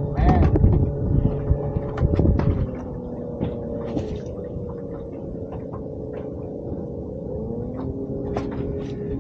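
Boat's electric trolling motor humming steadily, its pitch sliding lower twice as it changes speed. There is heavier rumble with a few knocks in the first couple of seconds, and small clicks throughout.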